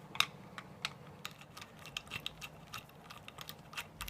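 A screwdriver undoing the small screws inside an airsoft M4 pistol grip: irregular light clicks and ticks, several a second, over a faint steady hum.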